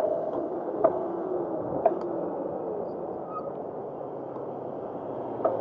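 Razor SX500 electric dirt bike riding along, its motor drive whining in a tone that wavers up and down with speed over a steady rushing noise. There are a few sharp clicks or knocks as it rolls over the paving.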